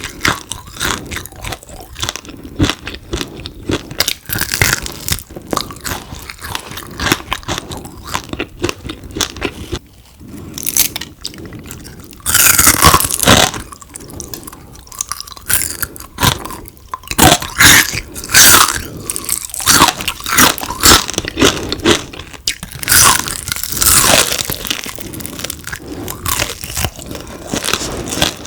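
A person biting into and chewing crispy deep-fried frog: a dense run of crisp crunches, with several louder bites partway through.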